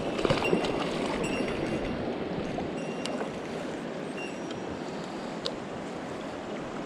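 Mountain stream running steadily, a little louder in the first couple of seconds, with a couple of faint clicks.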